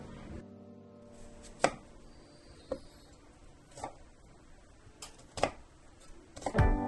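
A chef's knife chopping vegetables on a bamboo cutting board: five separate knocks of the blade on the wood, the first the loudest. Background music fades out at the start and comes back near the end.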